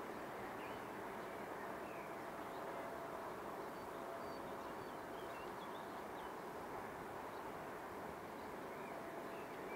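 Steady hum of honeybees swarming over an open hive and the brood frame lifted from it, with faint bird chirps in the background about four to five seconds in.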